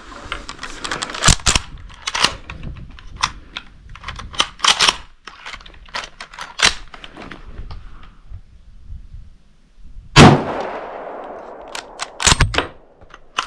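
Metallic clicking and clacking as the M95M straight-pull rifle is handled and loaded with 8mm Mauser cartridges. About ten seconds in comes a single loud rifle shot with a long echoing tail. About two seconds later the bolt is worked with a quick cluster of sharp clacks.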